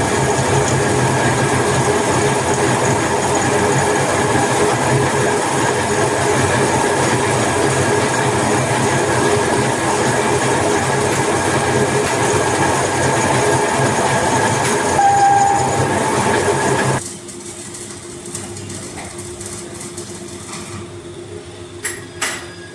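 A machine running steadily with a constant hum and hiss, a brief higher whine about fifteen seconds in, then cutting off about seventeen seconds in, leaving a much quieter background with a few clicks.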